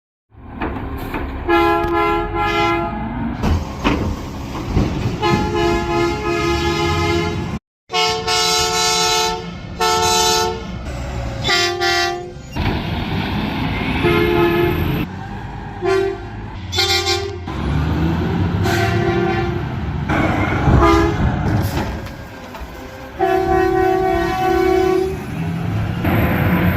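Garbage truck horns honking in a run of separate clips, about a dozen blasts in all. Most are short honks of under a second, a few last around two seconds, and the pitch changes from clip to clip. A truck engine runs underneath.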